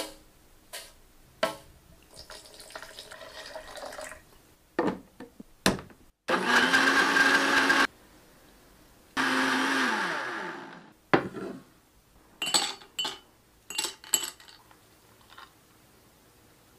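Countertop blender motor running twice for about a second and a half each, puréeing fruit with water in a plastic jar; the second run winds down with a falling pitch. Short sharp clicks and taps come before and after the runs.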